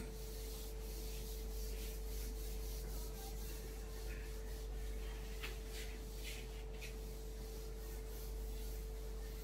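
Handheld whiteboard eraser wiping marker off a whiteboard in a run of repeated soft rubbing strokes, over a steady electrical hum. A single sharp tap opens it.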